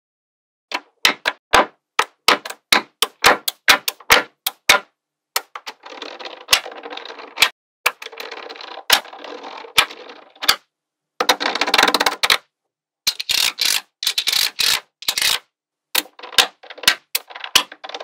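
Small magnetic balls clicking sharply as they snap together one strip at a time. There are stretches of dense rattling clatter as rows are laid and pressed into the slab.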